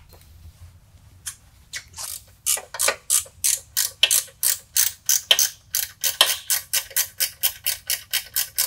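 Ratchet wrench clicking as it backs off the long belt-tension bolt, slackening the drive belt. A few spaced clicks at first, then a steady run that speeds up to about four or five clicks a second.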